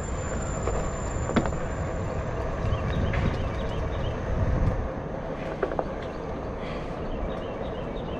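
Steady low rumble of road and wind noise while riding an electric one-wheeled board, with faint steady tones, a few clicks and scattered short high chirps over it.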